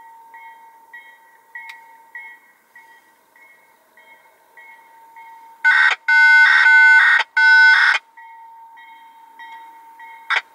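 Grade-crossing warning bell ringing about twice a second. About six seconds in, a locomotive horn sounds loudly in three blasts: a short one, a long one, then a shorter one.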